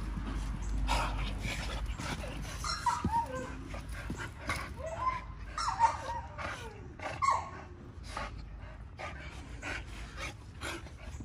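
American bully dogs rough-housing on dirt: scuffling paws and knocks throughout. A run of short dog whines and yips comes in the middle few seconds.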